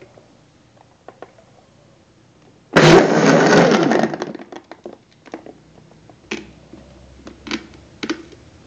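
Kitchen blender running in one short loud burst of about a second and a half, blending juice with ice cubes, then trailing off. A few light knocks and clicks follow.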